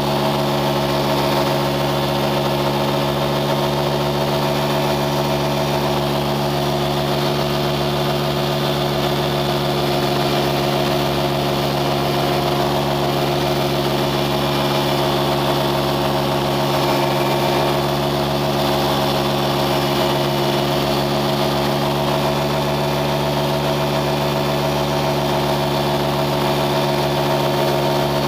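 An engine running at a steady speed: a constant drone whose pitch does not change.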